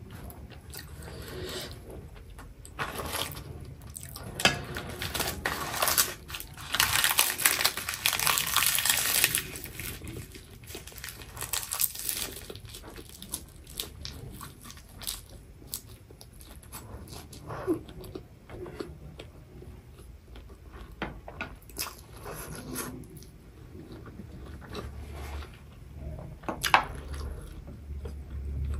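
Close-up eating sounds: slurping stir-fried instant noodles and chewing them with crisp roasted seaweed, full of wet mouth clicks and smacks. A longer, louder stretch of slurping and crunching comes about seven to nine seconds in.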